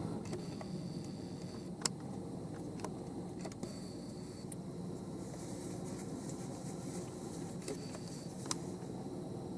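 Steady low rumble with a few sharp clicks, the clearest about two seconds in and again near the end.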